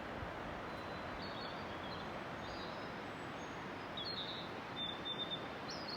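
Small birds calling: short, high chirps and brief trills, a few early on and more of them in the second half, over a steady rushing hiss.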